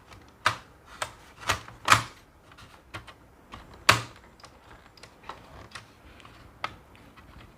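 Irregular sharp plastic clicks and knocks as a laptop's CD-ROM drive is pushed back into its bay: five louder clacks in the first four seconds, then a few fainter ticks.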